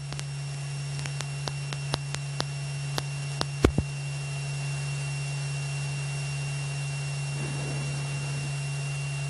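Single-engine light aircraft's piston engine idling on the ground during shutdown, heard as a steady low hum with a thin high whine. About a dozen sharp clicks in the first four seconds, typical of cockpit switches being turned off.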